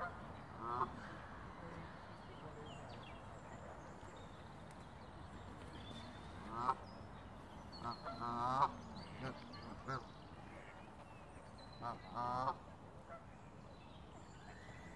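Waterfowl on a lake calling: short runs of harsh, pitched calls come several times, the loudest about halfway through, over a quiet outdoor background.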